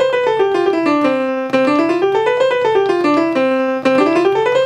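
Piano sound played from Native Instruments Maschine Studio pads: a fast C major scale, one note about every sixth of a second, running up an octave and back down about twice, over a held low note.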